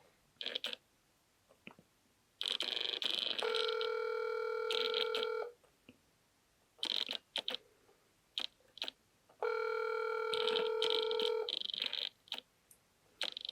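Phone call ringing out unanswered on a phone's speaker: two rings, each about three seconds long.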